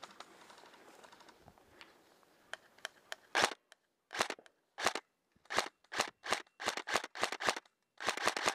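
Airsoft rifle firing single shots in quick succession, starting about three seconds in, then coming two to three a second and closer together near the end. Before the shooting there are only faint clicks and rustling.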